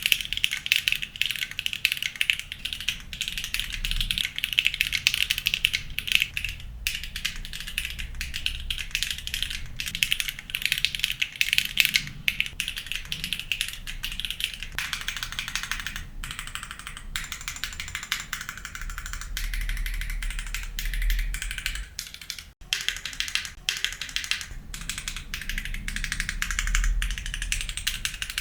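Fast, continuous typing on a mechanical keyboard with Siliworks Sonja linear switches and PBT keycaps in an O-ring-mounted aluminum case: a steady stream of key clacks with a momentary break about three-quarters of the way through.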